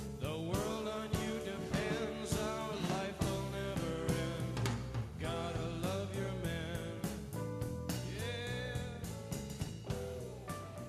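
Background rock music: a singing voice with bending, wavering pitch over a steady drum beat and bass, beginning to fade out near the end.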